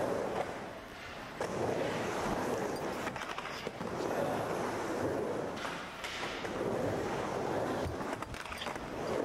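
Skateboard wheels rolling back and forth across an indoor ramp, the rumble swelling and fading with each pass, with a few sharp clacks of the board on the ramp.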